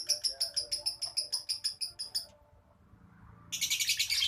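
Lovebird chattering: a fast string of high, sharp chirps, about eight a second. The run stops a little after two seconds in and starts again about a second later.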